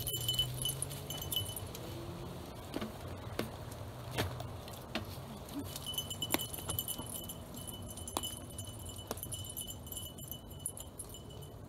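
Mountain bikes and a leashed dog passing over a pine-needle trail, with a continuous metallic jingling and a high ringing tone that carry on as they move away. There are a few sharp clicks over the first half.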